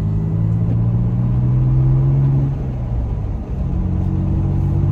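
Toyota Tacoma's engine pulling, its pitch rising slightly, easing off about two and a half seconds in and picking up again about a second later. Under it is a steady rush of wind and road noise heard inside the cab with the window down, loud enough to cover any tire noise from the Goodyear Wrangler DuraTrac tires.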